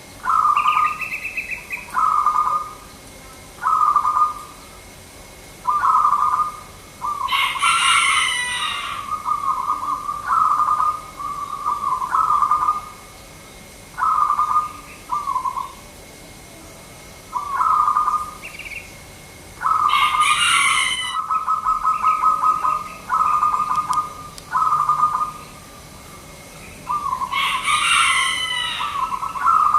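Zebra dove (perkutut) cooing: short rippling coo phrases repeated every second or two. Another bird's high chirping breaks in three times.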